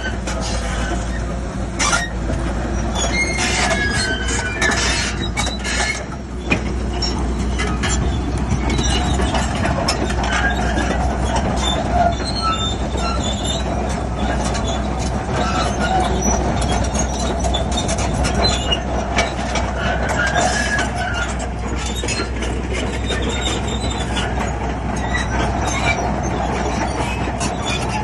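Crawler bulldozer's diesel engine running under load, with its steel tracks squealing and clanking as it pushes soil.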